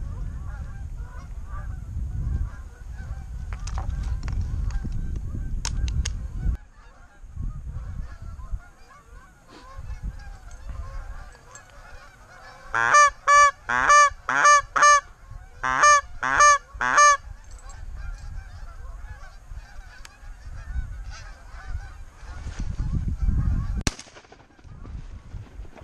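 Canada geese honking: faint, continuous flock chatter throughout, with a run of about ten loud honks in two quick groups in the middle. A low wind-and-handling rumble fills the first few seconds, and there is a single sharp crack near the end.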